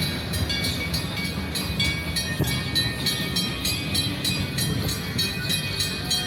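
Amusement-park train running, with a steady low rumble and an even, rhythmic clatter.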